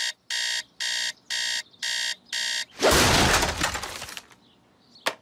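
Cartoon digital alarm clock beeping in short, evenly spaced bursts, about two a second, then a loud crash about three seconds in as a hand slams down on it and the beeping stops.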